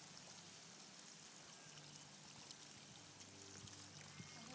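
Faint, steady hiss of water spraying from a garden hose.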